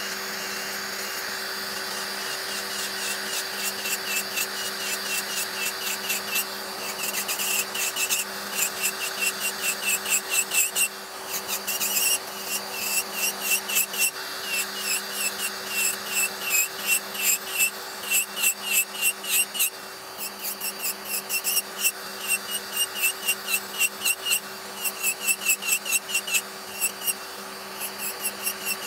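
Electric nail drill filing gel off a nail. The motor holds a steady hum while the bit grinds in quick, even strokes, about three a second, starting a few seconds in.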